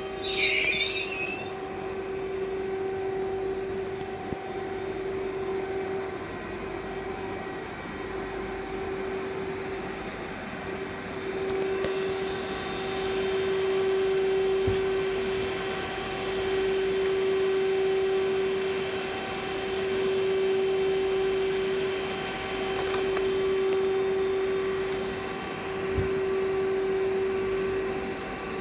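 A Newag Impuls electric multiple unit standing at a platform. Its onboard equipment gives a steady electrical hum on one mid-pitched tone that swells and fades every two to three seconds. A brief high hiss sounds about half a second in.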